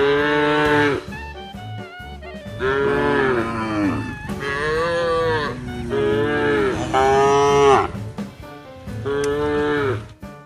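Cattle mooing: about six loud, drawn-out moos, each about a second long, some bending up and down in pitch, over background music with a steady beat.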